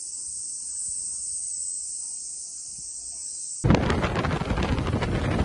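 Cicadas droning in a steady high-pitched chorus, cut off about three and a half seconds in by a sudden, much louder busy sound.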